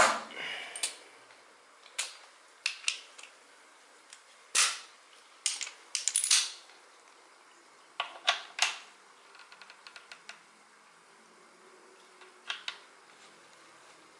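Hand tools clinking and knocking against metal as a long hex key and a torque wrench are fitted into a motorcycle frame's engine-mount spacer. The sharp clicks come singly and in small clusters, with a short run of faint quick ticks about nine seconds in.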